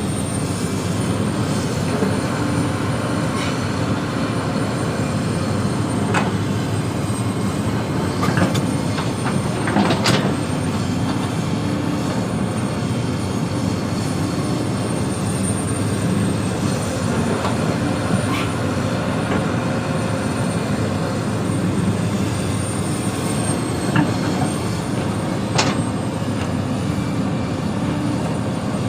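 Excavator's diesel engine running steadily while it digs soil, with a few sharp knocks, the loudest about ten seconds in.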